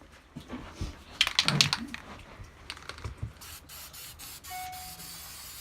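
Aerosol spray paint can: a rattling clatter about a second in, then spraying in short repeated bursts from past the middle on.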